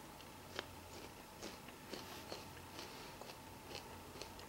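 A person chewing a bite of fresh fruit: faint, short crunching clicks scattered through, over a low steady room hum.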